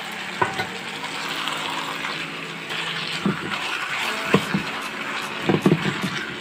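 Meat pieces sizzling in hot oil with onions and tomatoes in a steel pan, as they are just added and stirred. A steel ladle knocks against the pan several times, most often near the end.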